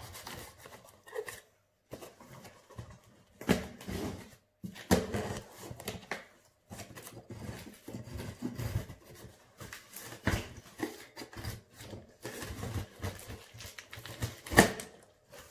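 Knife blade cutting through packing tape on a cardboard box, with cardboard flaps scraping and rustling as they are pried open, in irregular strokes with short pauses. One sharper crack near the end is the loudest sound.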